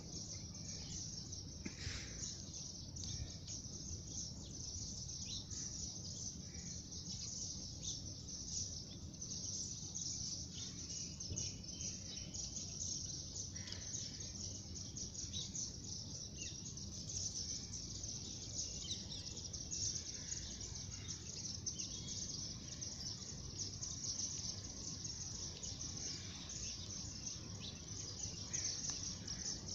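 Faint outdoor ambience: a steady high hiss with scattered short bird chirps over a low rumble.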